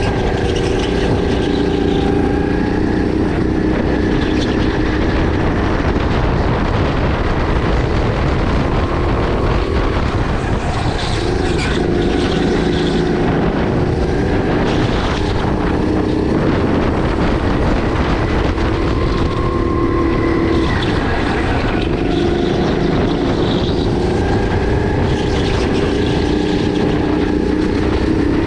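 Sodi RX8 kart's 270cc LPG engine running hard through a lap, its pitch rising on acceleration and dropping off into corners several times over, with road and wind noise underneath.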